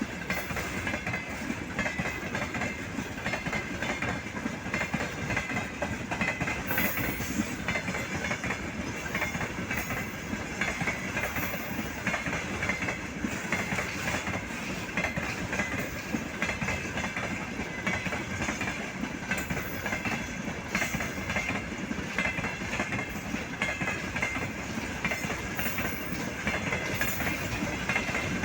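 Railway wheelsets knocking and clattering on the rails in a continuous dense rattle, with a steady metallic ringing over it.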